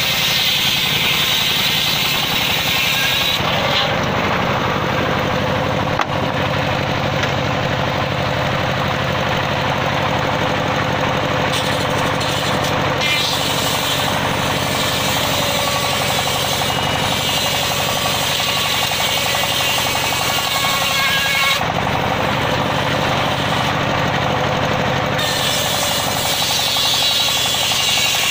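Large table circular saw ripping teak wood, the blade cutting continuously over a steady low drone from the machine. The high hiss of the cut is brightest in the first few seconds and again near the end.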